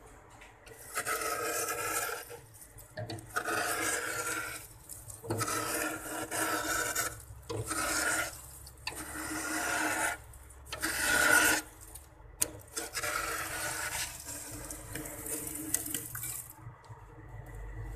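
A small cup scraping frost off the inside wall of a freezer compartment in a series of rasping strokes, each a second or two long with short pauses between. The stroke a little past the middle is the loudest.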